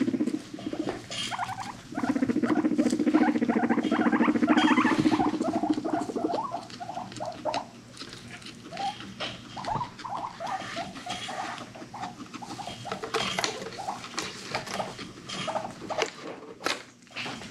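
Guinea pig rumblestrutting: a low, vibrating rumble, broken off briefly then resumed, that fades about six seconds in. The rumble is a dominance and courtship display. After it come short squeaks and chirps, a second or so apart, with light scuffling on the bedding.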